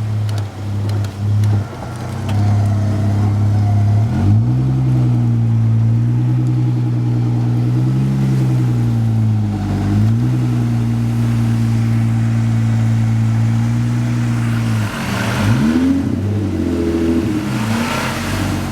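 Vehicle engine running and revving during a stuck-car recovery on ice. The pitch climbs about four seconds in and holds with a slight waver, dips briefly near the middle, then rises and falls several times near the end.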